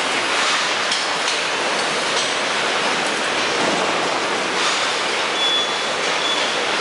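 Steady din of a car assembly line: conveyor and machinery noise filling the plant, with a few faint, short high beeps from about five seconds in.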